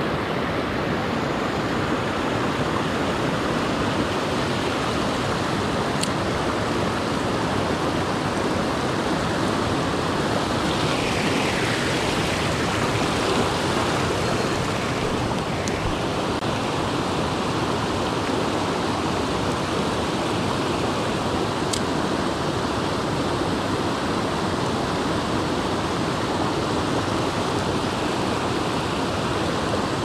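Small mountain stream rushing over rocks and little cascades, a steady, unbroken wash of water.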